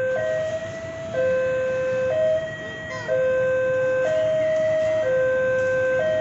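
Electronic warning alarm of a railway level crossing, sounding a steady two-tone signal that alternates between a lower and a higher tone about once a second: the warning that a train is approaching.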